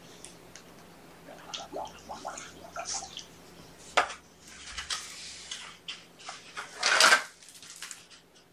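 Handling noises on a carpeted floor: a sharp knock about four seconds in as a tablet is set down, then scraping and rustling as a plastic ball-track cat toy is slid across the carpet, loudest about seven seconds in.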